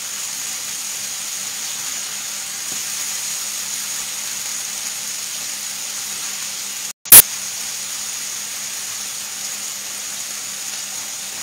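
Shi drum fillets and sliced artichokes frying in oil in pans on a gas hob: a steady sizzle. About seven seconds in the sound drops out for an instant and a single very loud crack follows.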